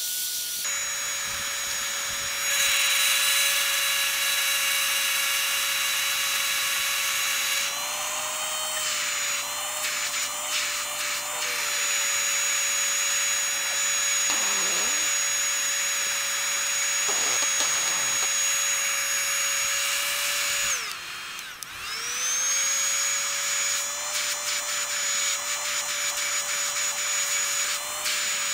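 Hot air gun running, its fan motor giving a steady high whine over rushing air. About three-quarters of the way through it winds down for a moment and spins back up.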